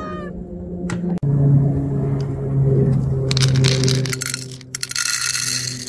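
Dry cat kibble poured from a plastic container into a ceramic bowl, rattling for about two and a half seconds starting a little past the middle, over a steady low hum.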